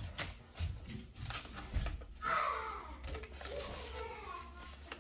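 Paper cards and an envelope rustling and tapping as they are handled, with a high, wavering call in the background starting about two seconds in and lasting about two seconds.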